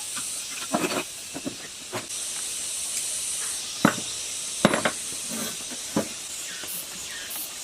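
A steady high-pitched hiss with a handful of sharp knocks and clicks scattered through it, the loudest about four and five seconds in.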